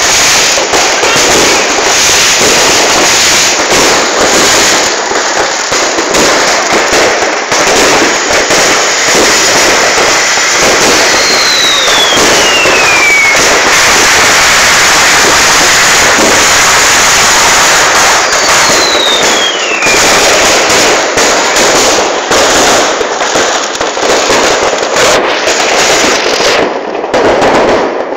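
Fireworks and firecrackers going off nonstop in a loud, dense barrage of bangs and crackling. Two falling whistles cut through it, one about eleven seconds in and one about eighteen seconds in.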